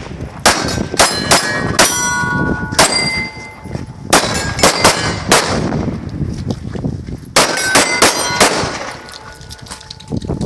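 9mm pistol shots fired in quick strings at a steel Texas Star target. The hits set the steel plates ringing with clear metallic tones. There are about fourteen shots in groups of four or five, with a pause of roughly two seconds between the last two groups.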